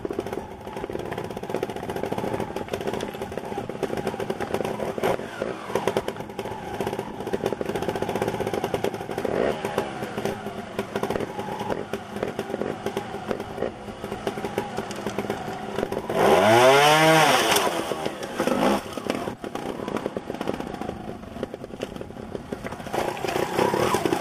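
Gas Gas two-stroke trials motorcycle engine running at a low, uneven idle with small throttle blips. About two-thirds of the way through comes one sharp rev, the loudest moment, and it revs up again near the end.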